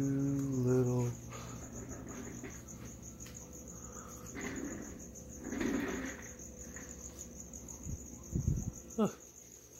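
Cricket chirping in a continuous, steady high-pitched trill, with a brief low hum at the start and a few low thumps near the end.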